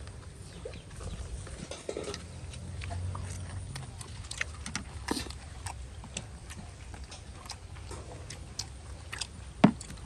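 Close-up eating sounds of a person chewing a large rice-paper spring roll: irregular small clicks and smacks of the mouth, with one sharper click near the end.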